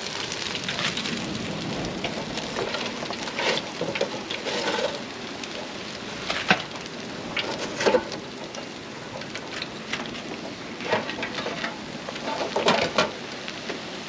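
Battered snapper frying in an electric deep fryer: a steady hiss of sizzling oil with fine crackles throughout, broken by a few sharp clicks.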